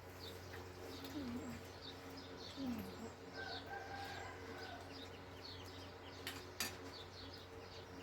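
Small birds chirping in quick, repeated short notes, faint, over a steady low hum. Two sharp clicks come near the end.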